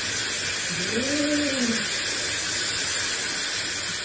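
Water running from a kitchen faucet with a steady hiss, and a cat being bathed in the sink giving one long low yowl about a second in, rising then falling in pitch.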